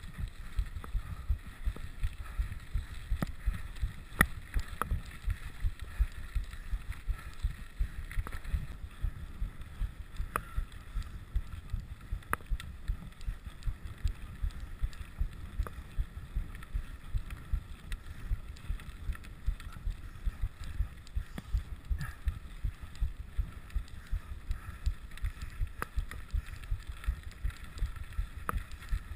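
Low rumble and rattle of a rigid 29er mountain bike rolling over a gravel road, with frequent irregular thumps and scattered sharp clicks from the rough surface, and some wind on the microphone.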